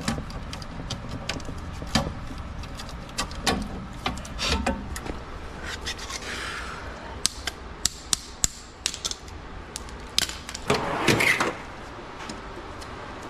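Irregular clicks, knocks and clatter of hand tools and metal parts being handled, over a low steady rumble, with a louder rushing burst lasting about a second, some ten and a half seconds in.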